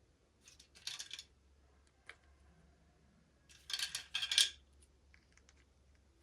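Packaging being handled and opened: two short bursts of crackly rustling, the second and louder one about three and a half seconds in, with a light click between them.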